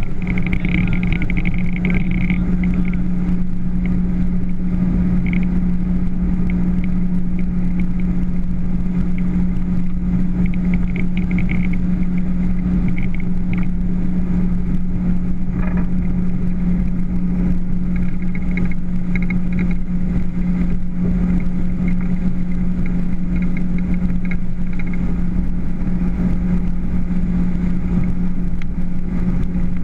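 Motorboat engine running at a steady speed, one constant drone with the rush of wind and water beneath it.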